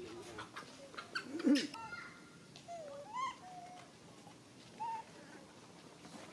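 Short squeaky animal calls: a few brief rising-and-falling notes between about two and five seconds in. Before them come scattered clicks and a louder short call about a second and a half in.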